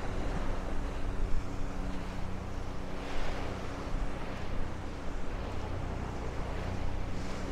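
Gulf surf washing onto the beach, the hiss swelling with each wave about every four seconds, with wind rumbling on the microphone. Under it runs the steady hum of an engine.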